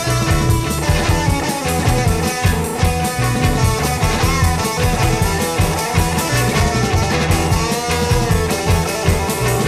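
Instrumental rock music: a guitar over a drum kit and bass with a steady, driving beat, no singing.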